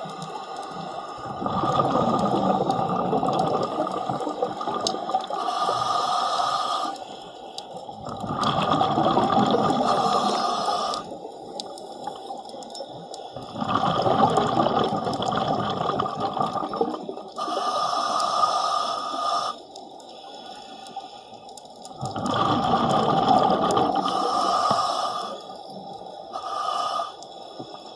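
A diver's exhaled bubbles, heard muffled underwater. They come in bursts of a few seconds with quieter gaps between, in a slow, regular breathing rhythm.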